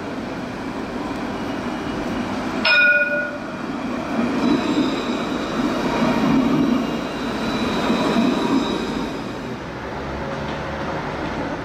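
Montpellier line 4 tram passing close by: a steady rumble of wheels on rails, with a steady high whine in the middle of the pass. One short ding of its warning bell rings out about three seconds in, the loudest sound.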